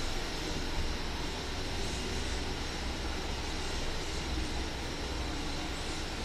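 Steady low rumble with an even hiss over it, unchanging and with no distinct sounds standing out.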